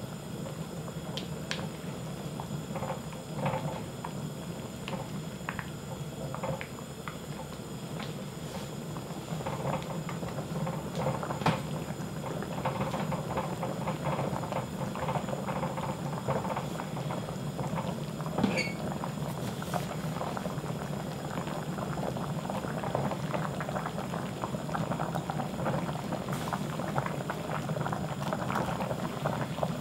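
Beef-brisket broth with rice cakes bubbling at a boil in a pot on a portable gas stove, the bubbling growing denser about a third of the way in, over a steady low hum. A few sharp knocks break through, the loudest two near the middle.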